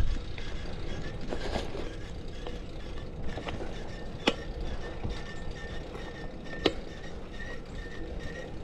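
Riding noise from a bicycle whose chain is too slack: a steady rumble with two sharp clicks about two and a half seconds apart. A faint, evenly repeated high tone starts past the middle.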